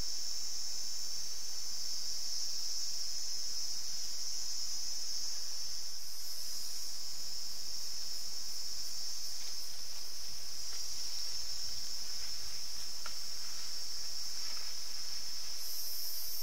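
Steady, high-pitched chorus of forest insects holding an even drone, with a few faint ticks in the middle.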